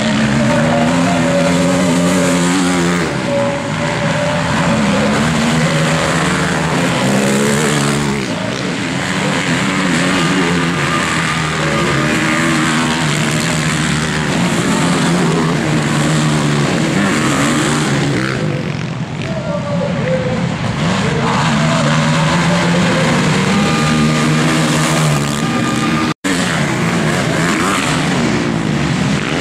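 Racing quads (four-wheeled ATVs) revving hard as they race past on a dirt motocross track, engine pitch rising and falling repeatedly as riders work the throttle and shift. The sound cuts out for an instant near the end.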